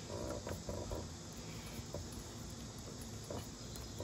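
Faint metallic clicks and scrapes as the jaws of oil filter pliers are fitted around a tractor's spin-on oil filter, mostly in the first second, with a couple of single ticks later.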